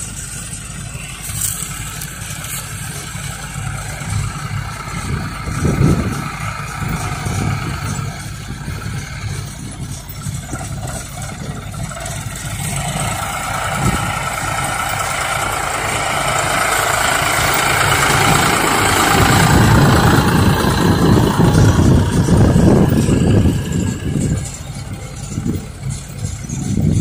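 John Deere 5310 tractors' three-cylinder diesel engines running, a steady low rumble that swells in the second half and is loudest about three-quarters of the way through.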